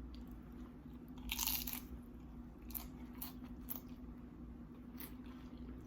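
Close-up chewing and crunching of seafood nachos, with one louder crunch about a second and a half in and a few smaller mouth clicks after, over a faint steady hum.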